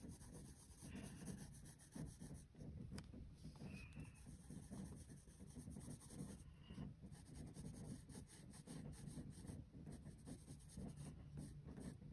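Faint scratching of a wooden graphite pencil shading on sketchbook paper, pressed hard to build dark values.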